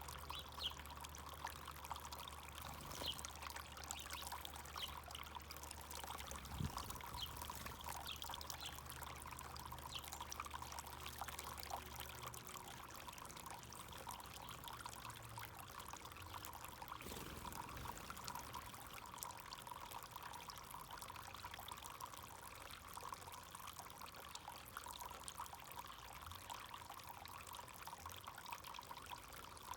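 Backyard fountain's water pouring and trickling steadily, with a faint low hum underneath that stops about twelve seconds in.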